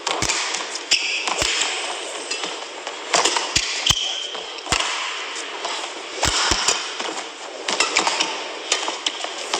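Badminton rally: a quick series of sharp racket-on-shuttlecock hits and heavy footfalls as players lunge and land, with short shoe squeaks on the court. A steady crowd hum runs underneath.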